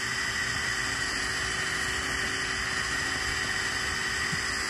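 DeWalt cordless drill running steadily, spinning a drill-paddle propeller that pushes an inflatable raft: an even, high motor whine over a hiss.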